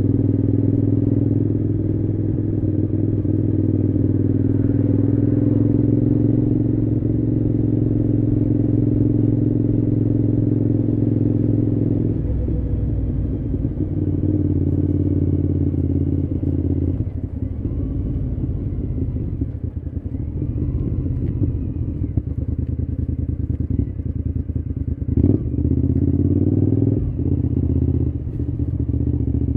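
Cagiva V-Raptor 1000's Suzuki-built 90-degree V-twin engine running steadily. Its note changes about twelve seconds in and turns rougher and more uneven later, with a sharp click about three-quarters of the way through.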